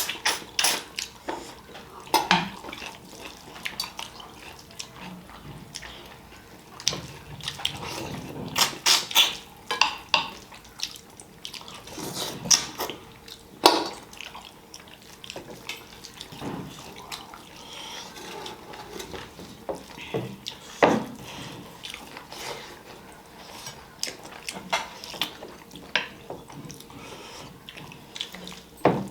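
A person eating fish curry and rice close to the microphone: chewing and mouth sounds, with scattered short clicks and clinks of dishes, busiest about a third of the way in.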